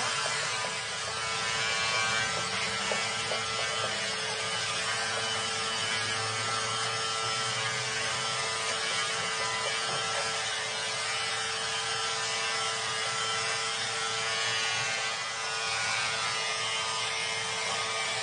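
Handheld electric angle grinder with an abrasive wheel running against the steel rod of a hydraulic cylinder: a steady motor whine over a continuous grinding hiss.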